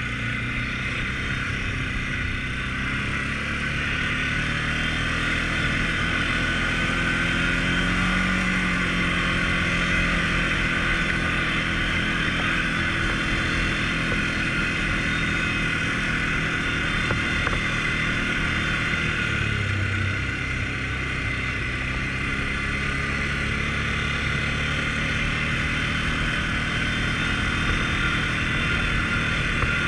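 A 2018 Can-Am Outlander 450 L ATV's single-cylinder engine running steadily as the machine is ridden along a dirt track. It rises a little about eight seconds in and eases off briefly about twenty seconds in.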